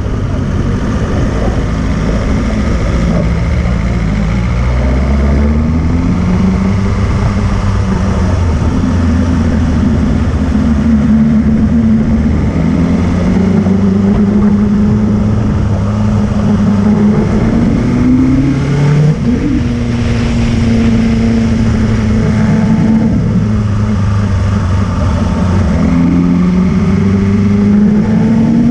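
Motorcycle engine pulling up a climbing road, its note rising as it accelerates and dropping back several times through the ride.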